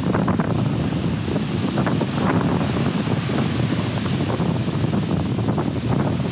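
Strong wind buffeting the microphone over the steady wash of breaking surf.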